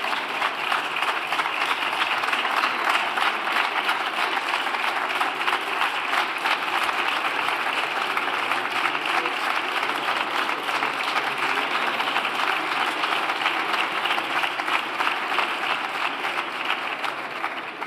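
A group of parliamentary deputies applauding, a steady crowd of hand claps greeting a bill just declared passed. The clapping thins out at the very end.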